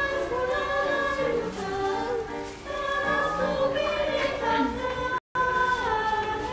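A group of voices singing together in held notes, like a small choir. The sound cuts out for an instant about five seconds in.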